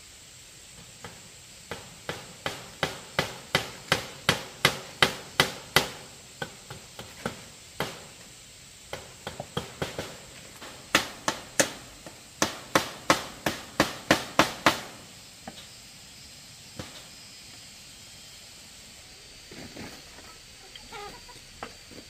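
Hammer driving nails into wood: two long runs of quick blows, about three a second, with a few lighter taps between them.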